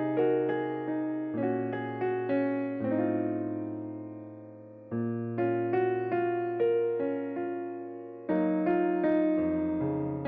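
Background music played on an electric piano: a gentle melody of struck notes over held bass notes that change every second or two.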